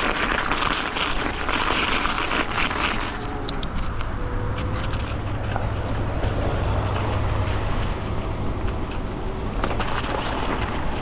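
Riding noise of an electric bike on an icy path: the tyres rolling over rough ground with a hiss for the first three seconds and again near the end, and a low rumble with scattered small clicks in between.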